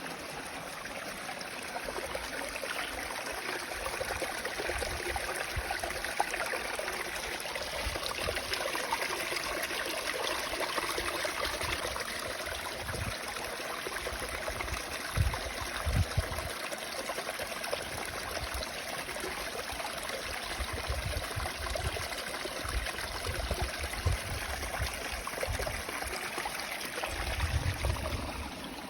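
Small waterfall, its water running and splashing steadily over the rocks. A few brief low rumbles come through, the strongest about halfway and near the end.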